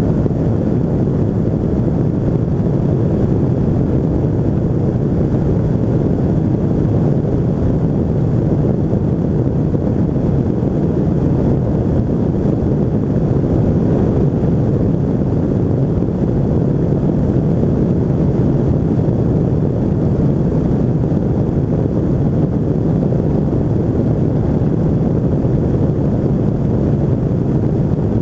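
Pegasus Quantum 582 flex-wing microlight in cruising flight: its two-stroke Rotax 582 engine and pusher propeller run at a steady drone, mixed with heavy wind rush on the microphone.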